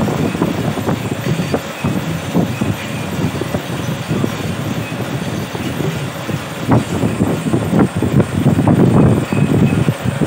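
Grass-mat weaving machine loom running, a steady mechanical clatter with many short knocks as its bar swings back and forth.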